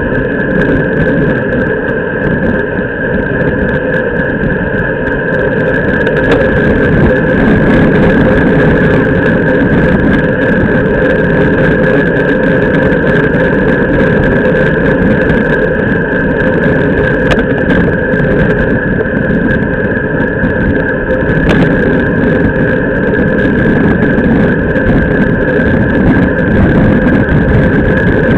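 Wind and road noise on a bicycle-mounted camera's microphone while riding at speed: a loud, steady rush with tyre hum on the asphalt, a constant high tone over it, and a few faint clicks.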